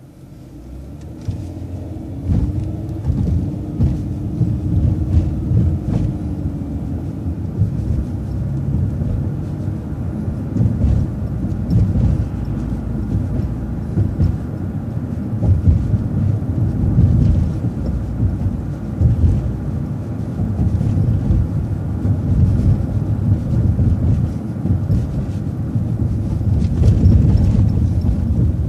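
City transit bus pulling away and driving on: a whine rises in pitch and levels off in the first few seconds, over a low, steady rumble of engine and road.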